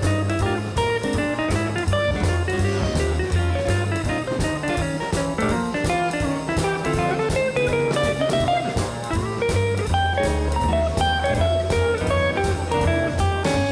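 Background music: a guitar-led tune with bass and a drum kit keeping a steady beat.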